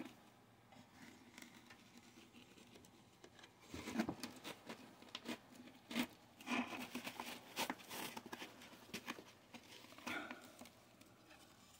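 Faint rustling, scraping and small clicks of jute twine being handled and pulled against a recliner's wooden base rail, starting about four seconds in.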